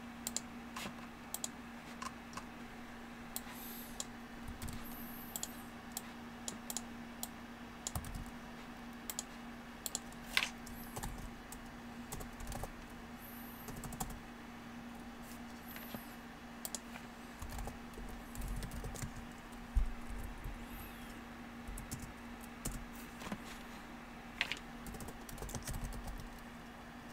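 Computer keyboard typing: irregular key clicks in scattered short runs, over a steady hum.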